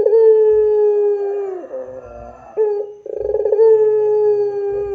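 White Barbary dove (puter pelung, bred for its long drawn-out coo) cooing. There are two long coos, each opening with a short rolling note, then held at one steady, slightly falling pitch for more than a second before dropping away.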